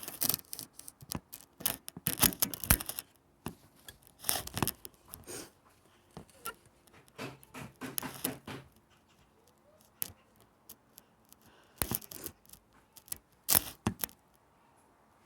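Handling noise close to the microphone as a phone is moved and set in place: irregular clicks, scrapes and rustles in bursts, busiest in the first half, with a few sharp knocks later.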